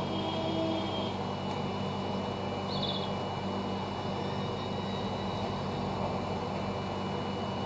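Hot air rework gun blowing steadily with a low electrical hum, heating a phone's circuit board while the charging connector is worked on with tweezers. A short high chirp comes about three seconds in.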